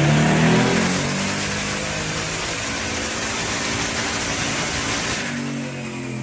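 A pickup truck's engine making a full-throttle pull on a chassis dyno: it revs up quickly and runs loud and steady at high rpm, then backs off about five seconds in and settles toward a lower, steady running note.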